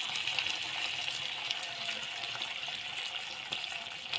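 Chicken curry sizzling in a hot pan as milk and cream are poured into it: a steady hiss with small crackles.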